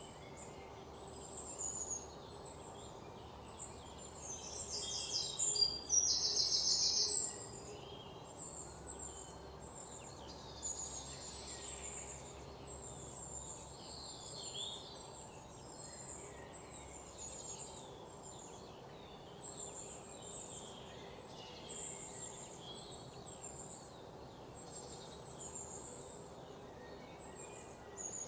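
Birds chirping and calling over a steady background hiss, with many short high-pitched chirps throughout. A louder, rapid trill stands out from about four to seven seconds in.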